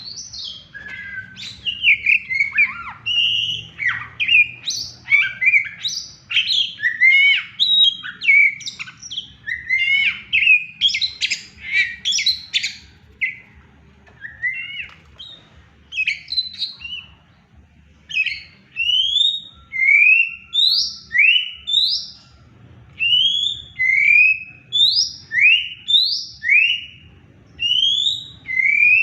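Oriental magpie-robin singing excitedly: a quick, varied run of whistles and chirps, changing about two-thirds of the way through to a steady series of clean rising whistled notes, about one a second.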